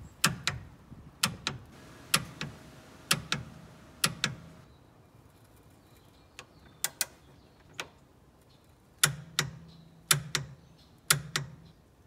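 Ratchet head of a torque wrench clicking as it is swung back and forth on a transmission-mount nut being torqued to 28 foot-pounds: sharp clicks, mostly in pairs about once a second, with a sparser stretch in the middle.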